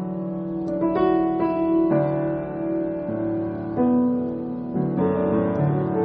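Slow, gentle piano music: held notes and chords, with a new note or chord every second or two.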